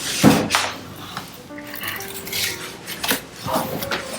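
Large cardboard shipping box being handled: a couple of sharp knocks and scrapes near the start and a few lighter ones later, over background music.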